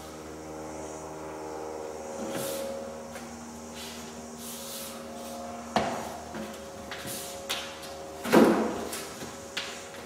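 Knocks and scraping as a length of plaster cornice is handled and pressed up into the wall-ceiling corner: a sharp knock about six seconds in, then a louder thud a couple of seconds later and a few lighter clicks, over a steady low hum.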